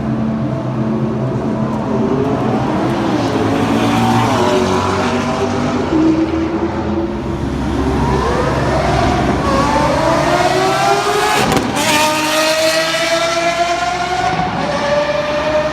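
Supercar engine accelerating, its pitch climbing in several rising sweeps with short breaks between them as it shifts up, and one sharp crack about twelve seconds in.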